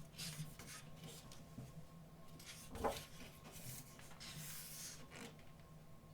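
Photobook pages being handled and turned: soft paper rubbing and rustling in several short sweeps, with one dull knock about three seconds in.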